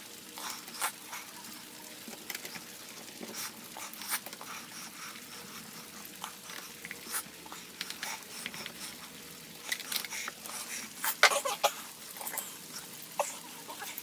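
Scattered small clicks, taps and scrapes of a screwdriver and fingers working a metal door latch and its faceplate, with a brief cluster of louder clicks about three-quarters of the way through.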